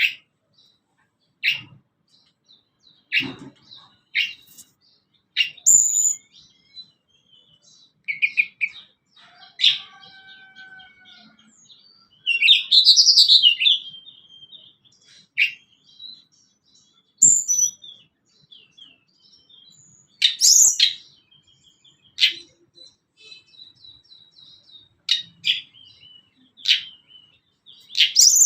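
Tledekan gunung singing: short, sharp high calls every second or two, with a longer warbling phrase about halfway through.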